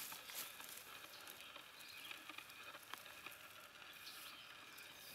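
Near-quiet woodland background with a few faint light clicks and rustles as a tarp guy line is handled.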